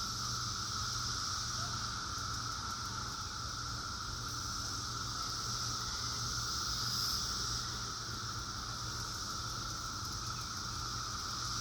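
Steady chorus of Brood X periodical cicadas, a continuous drone with two pitch bands, a lower hum and a higher hiss, over a faint low rumble.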